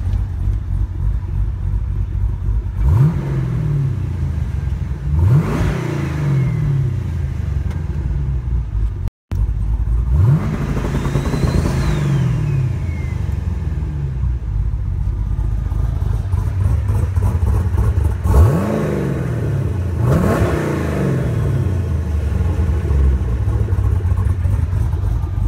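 Twin-turbocharged 416-cubic-inch V8 of a 2012 Camaro SS idling and being revved five times, each rev climbing sharply and dropping back to idle. After the third rev a high turbo whistle falls away.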